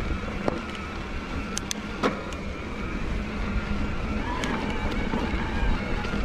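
Bosch Performance Line CX mid-drive motor of an e-mountain bike whining steadily under pedal assist on a climb, over a low rumble from the trail and wind. A few sharp clicks and knocks from the bike over rough ground come about half a second and two seconds in.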